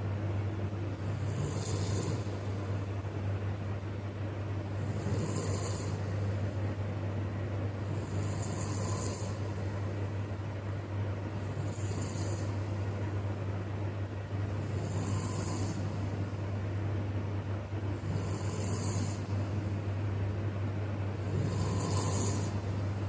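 A man snoring in his sleep, with a hissing breath about every three and a half seconds, seven in all, over a steady low hum.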